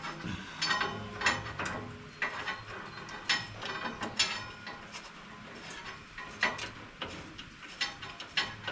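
Ratchet wrench clicking in irregular spurts, with metallic taps, as bolts on a round baler are run down a full set of threads but not yet snugged.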